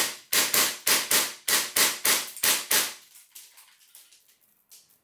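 Gas blowback airsoft AK rifle firing a rapid string of about eight sharp shots, roughly three a second, which stops about three seconds in. Faint scattered ticks follow as BBs bounce around the room.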